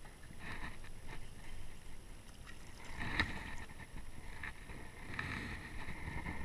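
A small crappie being reeled in and swung out of the water on a fishing line: splashing at the surface mixed with scattered clicks and rattles from the rod and reel.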